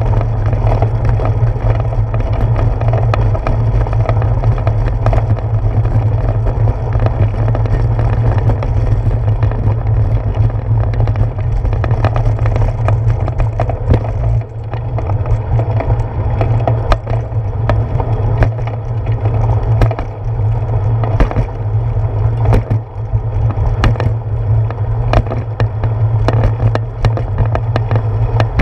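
Bicycle rolling over brick pavers and rough pavement, heard through its handlebar-mounted camera: a steady low rumble of road vibration and wind, with frequent sharp clicks and rattles as the wheels hit bumps and joints.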